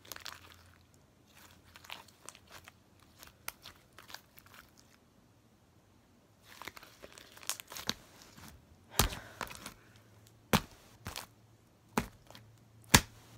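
Slime being squished and stretched by hand: soft sticky crackling with scattered sharp pops, the four loudest pops coming in the second half.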